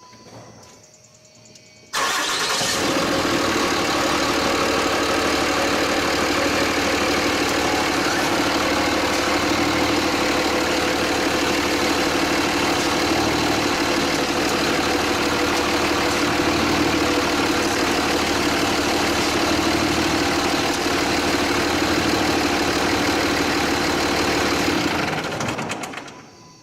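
2007 Ram 2500 pickup's engine comes in suddenly about two seconds in and runs steadily at idle, then dies away near the end.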